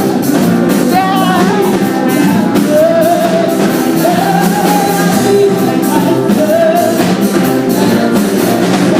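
Live praise band music: a voice sings a wavering melody over sustained chords and a steady drum beat.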